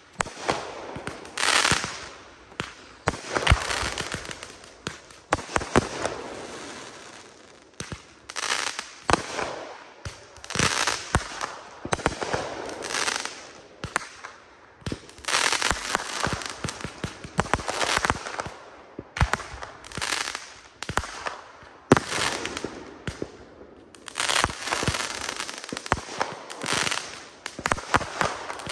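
Consumer 1.4G fireworks going off: a rapid run of launch shots and aerial bursts, coming in loud spells of a few seconds with short lulls between.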